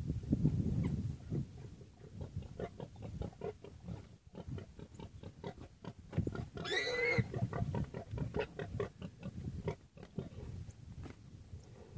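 A warthog grunting and squealing in distress while being attacked by African wild dogs: a rapid string of short grunts, with one longer, higher squeal about seven seconds in.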